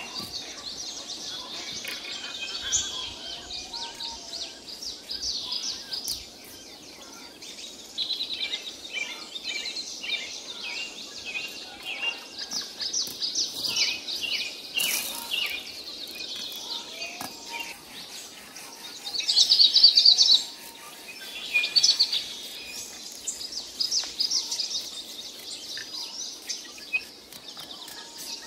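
Birds chirping and insects trilling in fast pulses, with a louder burst of trilling about twenty seconds in.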